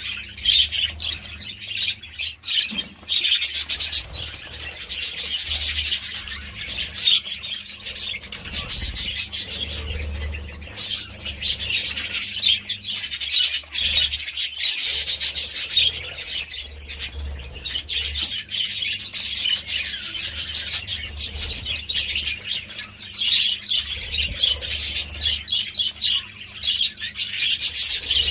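A flock of budgerigars chattering and warbling together: a dense, continuous stream of fast chirps, clicks and squawks that swells and dips every few seconds.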